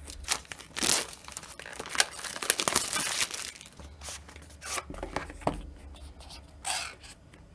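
Smartwatch packaging being opened by hand: irregular tearing and crinkling of the wrapping and seal, with rustles and small knocks as the box is handled.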